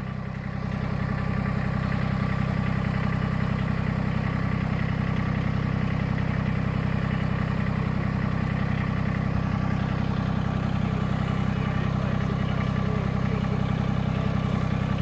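Massey Ferguson GC1710 sub-compact tractor's three-cylinder diesel engine running steadily while the backhoe is worked, a little louder from about a second in.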